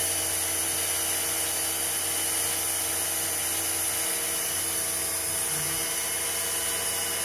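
FANUC CNC drill and tap centre running a program, its spindle turning a small milling cutter at around 4,000 rpm while the table moves to interpolate in aluminium. The sound is a steady high whine and hiss over a low hum.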